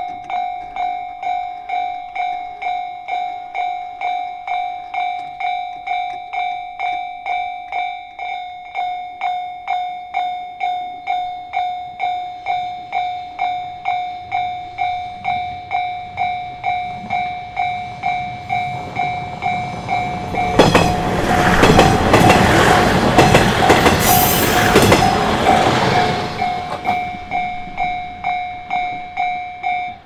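Japanese level-crossing warning bell ringing its repeated electronic ding, about two a second. About two-thirds of the way in, a train passes over the crossing for about six seconds, a loud rush with wheel clatter. The bell stops right at the end.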